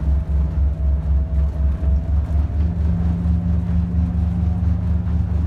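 Motorboat under way at speed: the engine runs with a steady low drone and an even, pulsing throb. About two and a half seconds in, its tone steps up slightly as the boat gathers speed.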